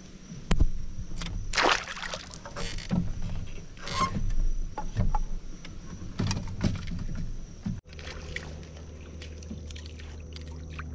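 Irregular knocks and rattles on a fishing kayak's hull and gear. After a sudden break a steady low hum sets in, with light splashing as a small bream is reeled to the surface.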